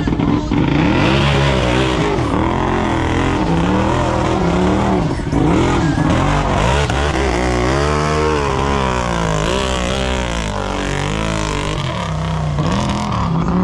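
Big-tire unlimited-class mud racer's engine revving hard during a run, its pitch climbing and dropping again and again, with one long climb and fall about halfway through.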